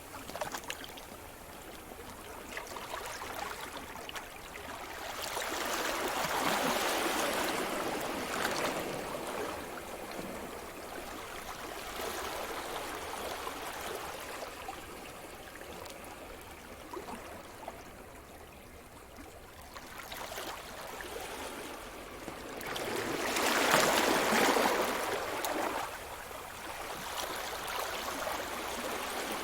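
Sea surf: a steady wash of water on the shore, with waves swelling and breaking, one about a quarter of the way in and a louder one late on.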